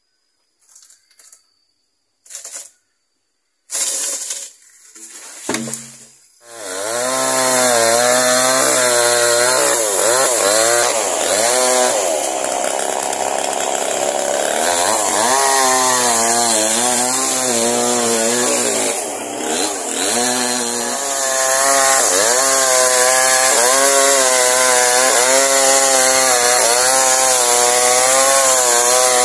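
Two-stroke chainsaw cutting through a palm trunk, its engine pitch rising and dipping as the chain bites and frees. A few short knocks come first, and the saw starts up about six seconds in.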